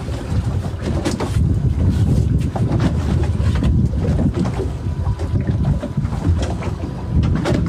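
Wind rumbling steadily on the microphone out on the water, with a few sharp knocks.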